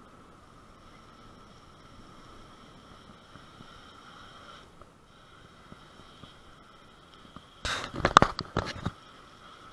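Bicycle rolling along a paved lane with a steady faint whine, then about a second of loud rattling knocks near the end as the bike jolts over rough ground.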